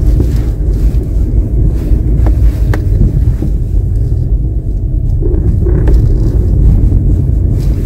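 Inside a Hyundai car driving on a dirt road: steady, loud low rumble of engine and tyres, with a few light knocks a couple of seconds in.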